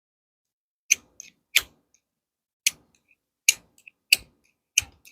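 Multi-tool's metal file scraped in short, sharp strokes, about six of them, starting about a second in, to try to throw sparks for a fire; no fire catches.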